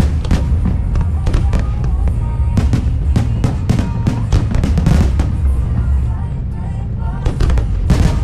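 Fireworks going off in rapid bangs and crackles over music with a heavy bass. They ease off about six seconds in, then a fresh cluster of bangs comes near the end.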